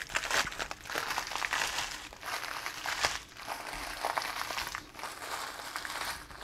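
Saltine crackers being crushed by hand in their plastic packet: crackling crunches mixed with wrapper crinkle, in several bursts.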